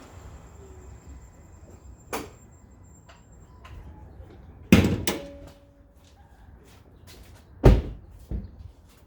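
Car door thuds and slams: two loud slams about three seconds apart, with lighter knocks and clunks between.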